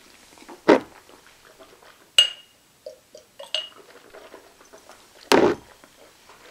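Stemmed whisky nosing glass being handled: a dull knock about a second in, two sharp glassy clinks with a brief ring a little after two and three and a half seconds, and a heavier knock near the end.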